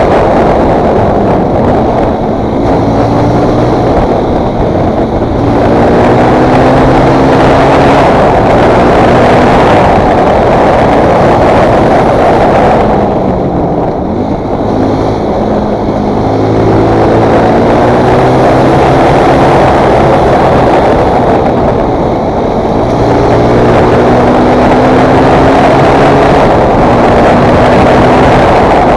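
Fantic Performance 125 motard's single-cylinder four-stroke engine accelerating through the gears, its pitch climbing and dropping back at each shift, several times over. Heavy wind rush sits over the engine, with a brief easing of the throttle about halfway through.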